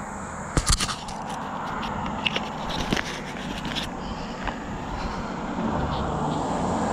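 Sharp metal clicks and light knocks as a rusty, river-recovered pistol and its parts are handled in gloved hands and set against a concrete parapet, a cluster of them about half a second in and a few scattered ones after. Steady road traffic noise underneath, growing louder near the end.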